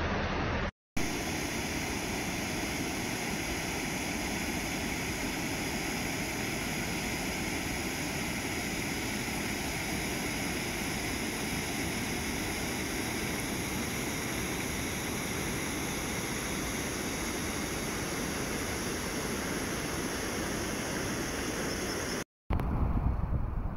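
Flash-flood water rushing in a wadi, muddy water pouring over a low weir in a steady, even roar. The sound breaks off for a moment about a second in and again near the end, where low wind buffeting on the microphone takes over.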